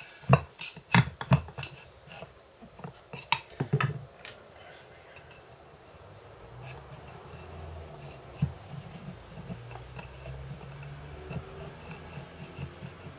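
Sharp knocks and clinks in the first four seconds, then a quieter scraping and rubbing, as a coiled plastic strip is pushed down inside a shotgun's metal magazine tube.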